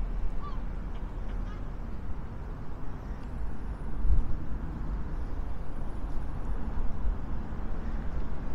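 Wind rumbling on the microphone, with a stronger gust about four seconds in. A duck quacks faintly near the start.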